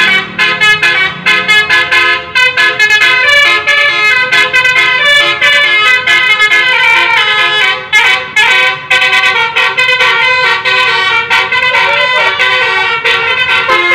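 Basuri-type bus telolet musical horn playing a melody: choppy short notes in the first couple of seconds, then longer notes running together.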